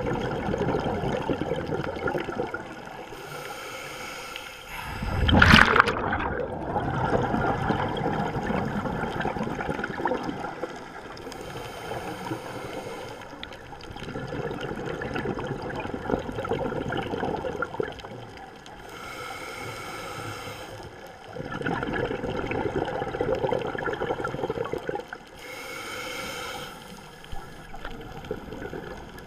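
Scuba diver breathing through a regulator underwater: a short hiss of inhalation followed by a few seconds of gurgling exhaled bubbles, repeating about four times. A brief loud burst of noise comes about five seconds in.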